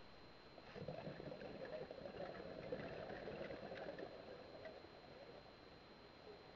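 Scuba diver's exhaled air bubbling out of a regulator underwater, heard muffled through the camera housing: a bubbling, crackling burst lasting about four seconds that starts about a second in and then fades. A faint steady high whine runs underneath.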